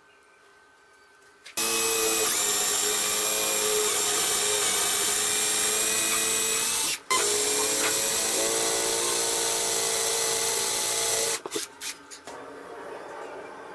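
Cordless drill driving screws into wood, its motor whining at a steady pitch in two long runs with a brief break about seven seconds in, then stopping with a few short trigger blips.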